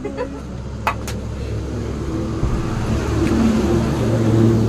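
Motor vehicle engine running, a steady hum that grows louder toward the end, with two sharp clicks about a second in.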